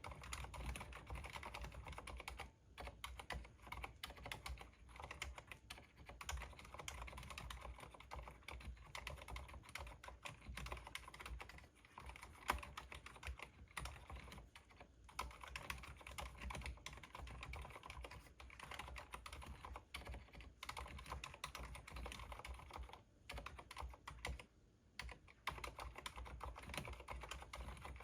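Continuous typing on a stock Cherry MX Board 2.0S wireless mechanical keyboard: a fast, irregular stream of key clicks with a few brief pauses and one louder keystroke about halfway through.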